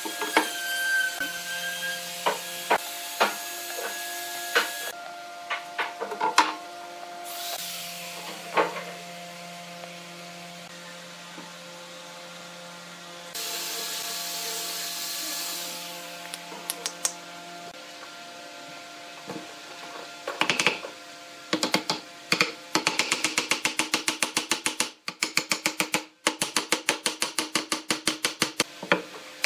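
Pine frame parts being handled and knocked together on a wooden workbench: scattered sharp knocks and clicks, then a fast even run of taps, about six a second, over roughly the last seven seconds.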